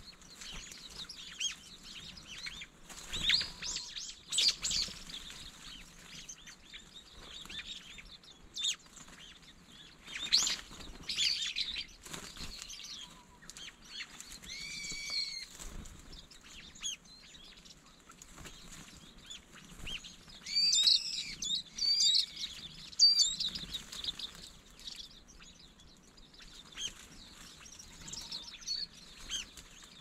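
Brown-eared bulbuls and Japanese white-eyes calling over thinner, scattered chirping, with wing flaps. Loud, harsh calls come in clusters a few seconds in, around ten seconds in, and loudest about twenty to twenty-three seconds in.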